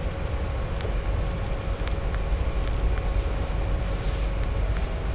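Steady low rumble of a moving passenger train heard from inside the carriage, with a faint steady hum and a few light clicks.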